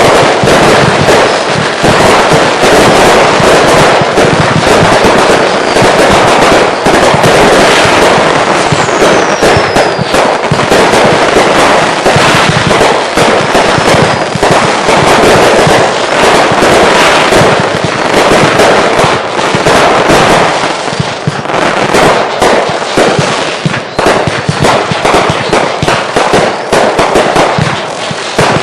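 Consumer fireworks going off in a dense, continuous finale barrage: rapid overlapping bangs and crackling, with a couple of brief falling whistles.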